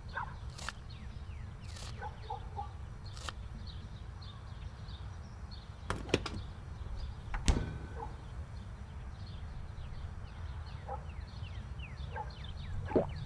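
Small birds chirping over and over, short falling calls, over a low rumble and a faint steady hum. A few sharp household knocks, two close together about six seconds in and the loudest about a second later.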